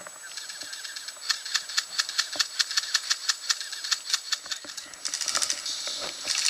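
Airsoft rifles firing, a quick run of sharp cracks several a second, with denser bursts near the end.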